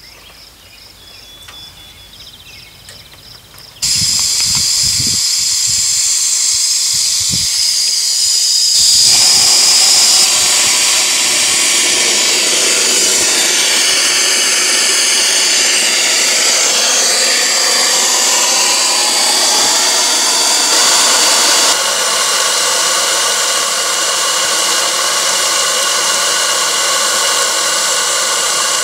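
Live-steam model steam locomotive venting steam through an opened valve as its boiler is let down at shutdown: a loud, steady hiss that starts suddenly about four seconds in and grows fuller around nine seconds in.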